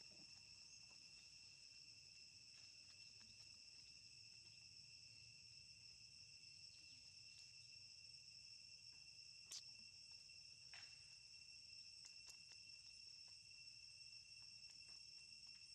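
Faint, steady high-pitched drone of insects in chorus, with a sharp click a little past halfway and a softer one about a second later.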